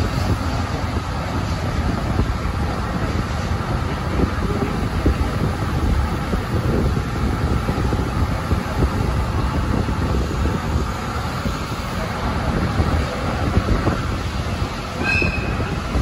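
ED75-hauled 12-series passenger coach train running on the rails: a steady rumble of wheels and running gear, with a short high wheel squeal near the end.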